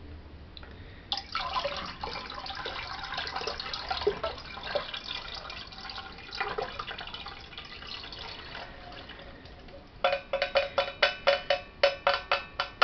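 Lye solution pouring from a stainless steel pitcher through a plastic strainer into a bucket of soap oils, a trickling splash. About ten seconds in it gives way to a quick run of ringing taps, about three or four a second.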